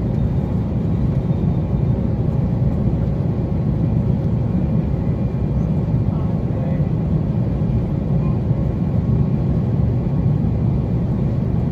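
Steady low rumble of engine and airflow noise inside a Boeing airliner's cabin, on final approach with the landing gear down.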